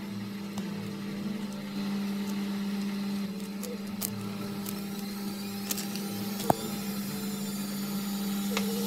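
Steady hum of a small electric motor or fan, with a few light clicks and one sharp tick about six and a half seconds in; it cuts off suddenly at the end.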